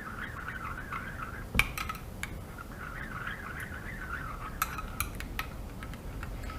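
A metal spoon stirring warm milk into gelatin in a bowl, scraping round and round with a few sharp clinks against the bowl's side, around two seconds in and again near five seconds.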